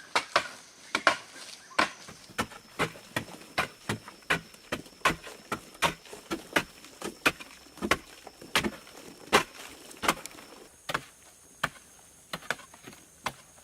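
Chopping on wood: sharp, separate strikes, about two or three a second, fewer and softer after about eleven seconds.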